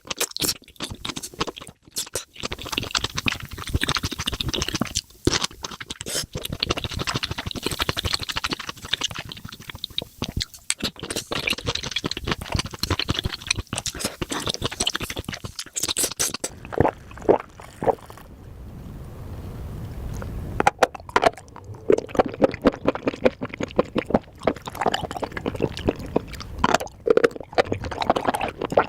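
Close-miked eating of spicy mushrooms: wet chewing, smacking and crunching, with a quieter, sparser stretch of separate clicks a little past the middle.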